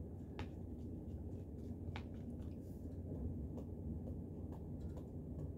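Cat eating from a small bowl: faint, scattered little clicks and ticks of its chewing and lapping, several a second apart, over a steady low hum.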